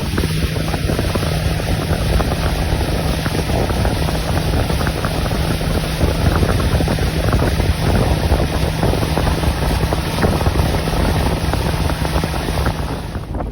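Boat motor running steadily with a low hum under heavy wind noise buffeting the microphone. The hum drops out near the end.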